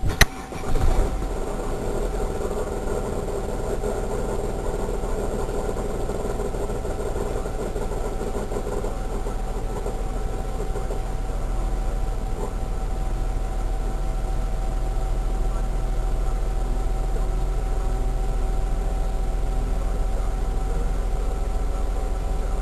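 Holden VS Commodore engine starting after a sharp click, then running steadily with an odd, steady whining tone over the idle. The owner puts the noise down to the serpentine belt slipping because it was damp.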